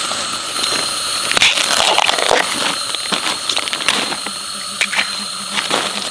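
Irregular crackling and rustling with scattered sharp clicks, over a steady high-pitched drone.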